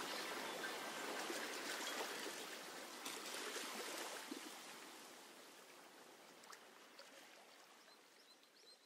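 Trickling and splashing water sounds with scattered light clicks, the water-recording texture of the film's soundtrack, fading out steadily and cutting to silence at the very end.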